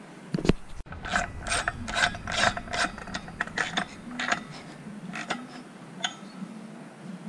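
Hand ratchet clicking in irregular runs of sharp clicks, about two to three a second, as it tightens a chainsaw clutch onto the crankshaft. The clicks thin out after about five seconds.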